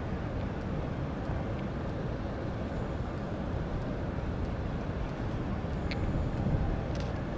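Steady low outdoor rumble with no single clear source, with a faint short tick about six seconds in.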